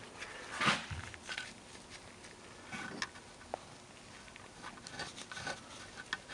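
Light scraping, rustling and small clicks of hand work in a spark plug hole of an aluminium cylinder head, with one louder knock about a second in.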